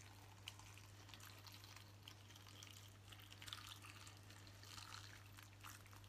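Filtered water being poured into a slow cooker pot of beef bones and vegetables to fill it up, a faint trickle and splash over a steady low hum.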